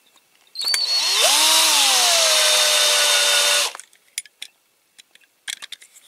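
Electric drill drilling out a rivet in a diecast toy truck's metal base. The motor spins up quickly, eases slightly lower in pitch and runs steadily for about three seconds, then stops. A few light clicks follow.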